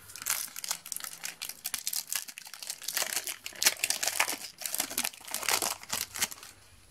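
Foil trading-card pack wrapper being torn open and crinkled in the hands: irregular crackling, busiest about three seconds in and again about five and a half seconds in.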